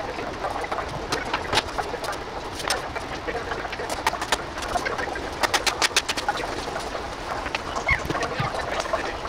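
A run of sharp clicks and taps over a steady background noise, with a quick cluster of several clicks about five and a half seconds in.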